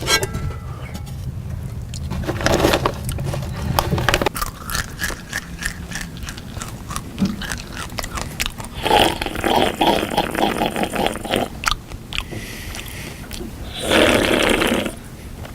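Loud crunching and chewing of food, with scraping sounds and many short sharp clicks.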